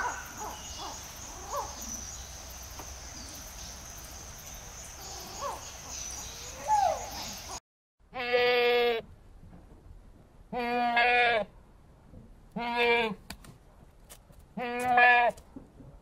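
Goats bleating: four loud, wavering bleats, each under a second long and about two seconds apart, starting about eight seconds in. Before them, a steady high-pitched whine with a few short chirping calls that stops abruptly.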